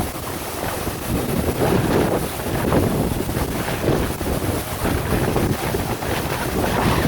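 Waterfall rushing steadily, with wind buffeting the microphone.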